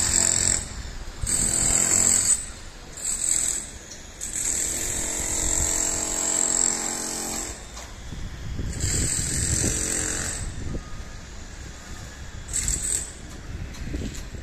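Outdoor rumble and hiss coming in uneven gusts, with a steady engine or machine hum for about three seconds midway.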